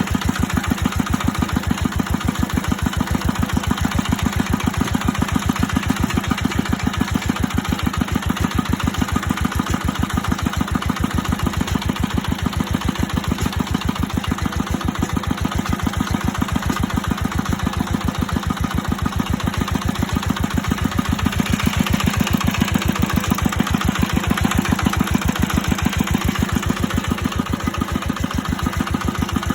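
An engine idling steadily with a rapid, even chugging beat, rising slightly in level about three quarters of the way through.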